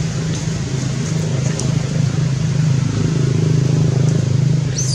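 A steady low motor hum, like an engine running close by. Near the end comes a brief high-pitched squeal from a baby monkey being pinned.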